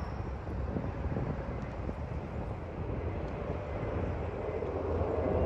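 Distant Boeing 777-300ER airliner's GE90 jet engines rumbling low as it approaches, growing louder near the end with a faint engine whine coming in. Wind buffets the microphone.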